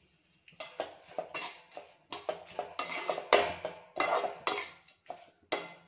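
Perforated metal spatula stirring and scraping chopped vegetables around an aluminium kadai, giving irregular clanks and scrapes several times a second from about half a second in.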